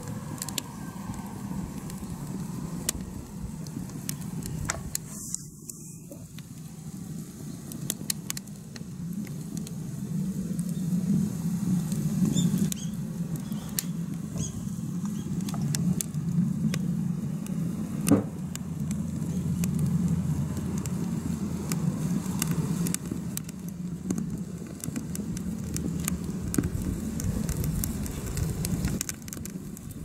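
Wood fire burning in a makeshift metal stove under a pan: scattered small crackles and one louder pop just past the middle, over a steady low rumble.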